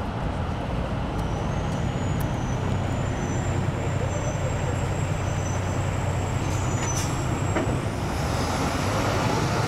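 Steady low engine rumble with road noise. A faint, thin high whine comes in about a second in and rises slightly near the end.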